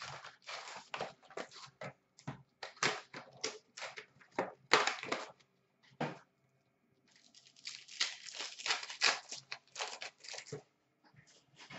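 Hockey card packs being opened by hand: cardboard and pack wrappers tearing and crinkling, and cards being handled and shuffled. The rips and rustles come in irregular clusters, the loudest about five seconds in, with a busy stretch in the second half.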